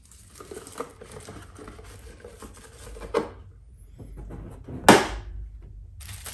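Boxes and small items handled and set down on a hard tabletop: light rustling and clicking, a knock about three seconds in and a sharper, louder knock about five seconds in.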